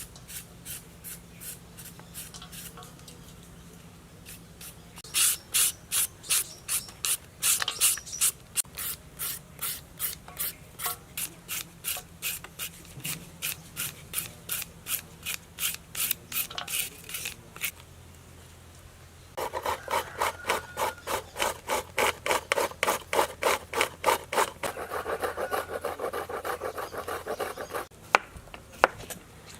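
Raw papaya being scraped by hand in quick, regular strokes, about three a second. There are two long runs with a short pause between them, the second fuller-sounding, and a few sharp clicks at the end.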